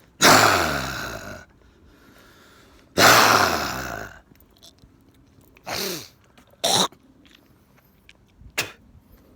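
A man's voice imitating a dragon's roar: two loud, raspy roars falling in pitch, followed by three shorter voiced calls.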